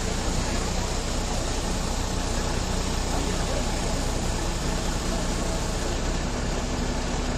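A vehicle engine idling steadily, a low even rumble under a constant hiss.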